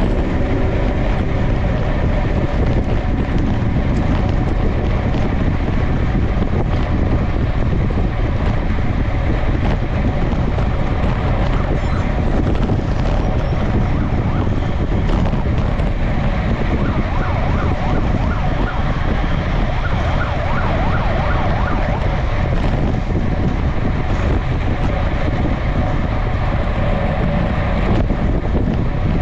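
Steady wind rushing over a bike-mounted action camera at about 45 km/h, mixed with the tyre and road noise of a road bike riding in a racing bunch.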